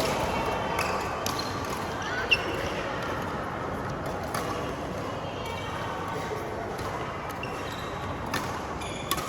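Badminton rally: rackets striking the shuttlecock with sharp cracks every second or two, over background chatter.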